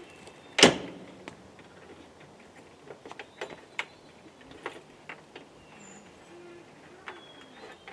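A single loud knock about half a second in, followed by scattered light clicks and taps.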